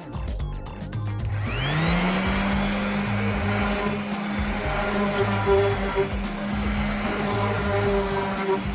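Electric sander switching on about a second in and spinning up to a steady whine, run over a stained wooden tabletop with worn 180-grit paper to lightly take back the finish.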